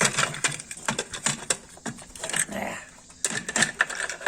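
Quick, irregular small clicks and knocks from the parts of a stick vacuum's opened handle being handled and fitted together.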